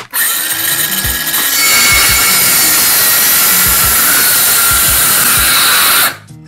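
Ryobi 18V brushless 6½-inch cordless circular saw spinning up and cutting through thick softwood and plywood, with a loud even cutting noise and a faint motor whine. The blade slows slightly as it meets the wood. The sound cuts off suddenly about six seconds in: the saw bogged down before it got all the way through.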